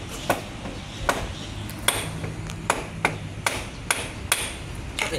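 Hammer blows through a rag on the front-left wheel hub, seating a new drive shaft: about nine sharp metallic strikes, one to two a second, each with a brief ring.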